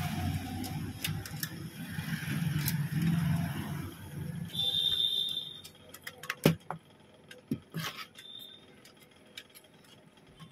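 A low rumbling noise for about the first five seconds, with a steady high-pitched beep for about a second near its end. After that, scattered sharp clicks and knocks as a car stereo's metal casing and circuit board are handled and fitted together.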